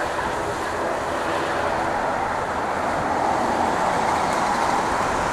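Boeing 777-200's twin jet engines running at low power as the airliner taxis and turns onto the runway: a steady rushing noise that swells slightly about three seconds in.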